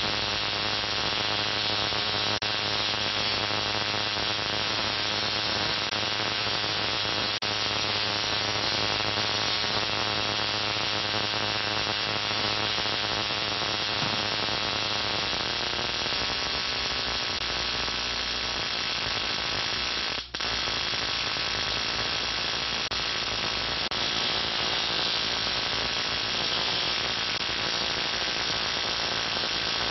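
Lakhovsky multiple wave oscillator running with its spark gap firing: a steady buzzing hiss over a mains hum. It cuts out for a split second about twenty seconds in.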